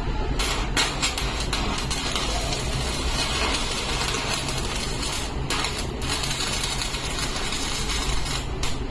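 Electric arc welding: a dense, steady crackle of the arc over a constant low hum from the welding machine. The arc breaks off briefly twice around the middle and stops just before the end.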